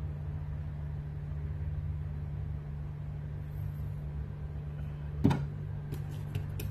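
A steady low hum, with a sharp knock about five seconds in and a few light clicks near the end as two spot-welded battery cells, joined by a nickel strip, are handled.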